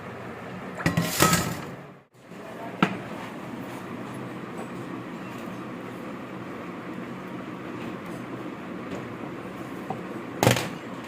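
Workshop knocks and clatter, likely metal parts being handled, over a steady background rumble. There is a burst of clatter about a second in, a single knock a little later, and a loud knock near the end.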